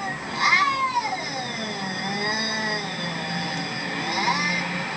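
A dog making strange howl-like vocal cries: a short rising-and-falling cry about half a second in, then one long, wavering cry that lasts about three seconds.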